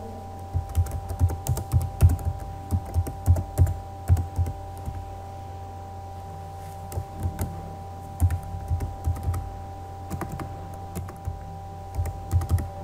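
Computer keyboard being typed on: quick, irregular runs of key clicks as an email address is entered, with a short pause partway through.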